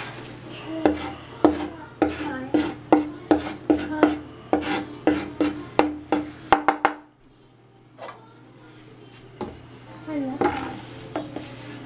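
Chef's knife chopping fresh parsley on a wooden cutting board: quick, sharp knocks of the blade on the wood, about three a second. The chopping pauses about seven seconds in, with one knock a second later, then resumes more lightly near the end.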